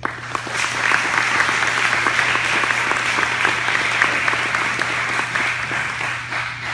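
Audience applauding: dense clapping that starts abruptly and tapers off near the end.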